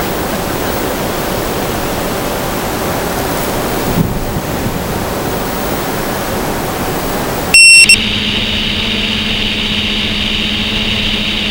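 A steady hiss, then about seven and a half seconds in one short, loud beep, followed by a steady electric hum. This fits an FPV quadcopter arming: the beep, then its motors spinning at idle before throttling up.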